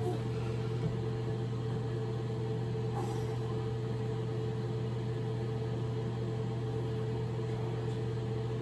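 A steady low machine hum with a buzzing tone, unchanging throughout.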